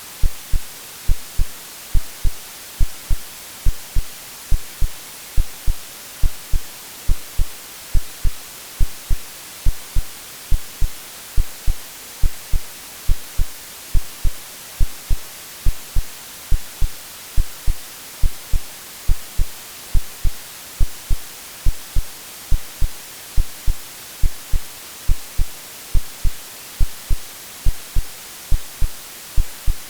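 Synthesized heartbeat, a steady lub-dub of low double thumps about once a second, over a constant white-noise hiss. It is an AI-generated sleep sound meant to imitate what a baby hears in the womb.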